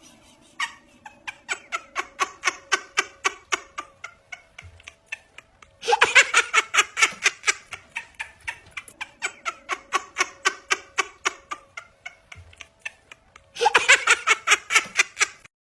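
Rhythmic laughter: a long, unbroken run of short 'ha' pulses, about five a second, getting louder about six seconds in and again near the end.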